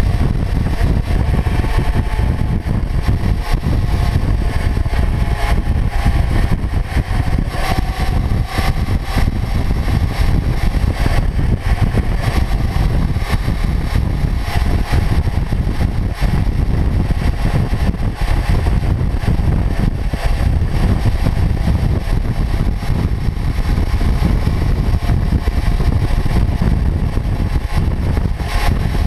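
Kawasaki Ninja 400's parallel-twin engine running at steady cruising speed, mixed with a heavy low rush of wind and road noise from riding.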